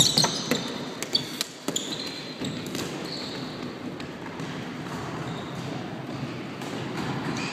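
Floorball play echoing in a sports hall: sharp clacks of plastic sticks on the ball and on each other in the first two seconds, with a few short high squeaks of shoes on the court floor. After that, a steady patter of running players.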